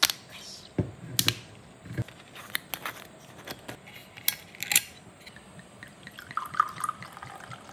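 A series of sharp clicks and light knocks at irregular intervals, from small objects being handled.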